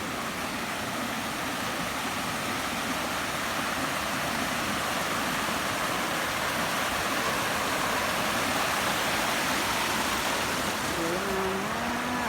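Waterfall pouring steadily, a constant even rush of falling water. A voice sounds briefly near the end.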